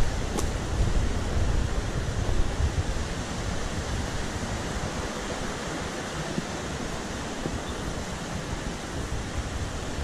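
Mountain stream rushing over rocks, a steady hiss of water, with wind buffeting the microphone for the first few seconds.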